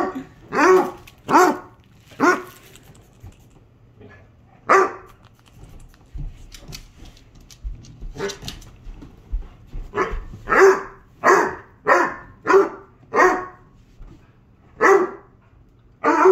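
Basset hound barking in play: about fourteen short, loud barks, a few in the first couple of seconds, then scattered ones and a quick run of barks from about ten to thirteen seconds in.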